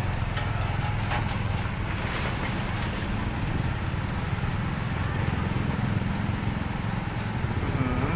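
A small engine idling steadily, a low even pulsing throughout, with a few light clicks in the first two seconds.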